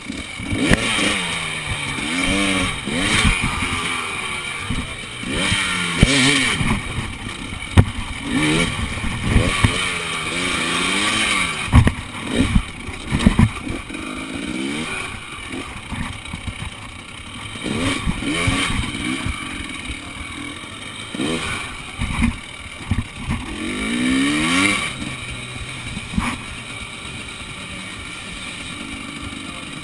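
Enduro motorcycle engine revving up and down in short bursts while being ridden over obstacles, with several sharp knocks along the way. It settles to a steadier, quieter run near the end.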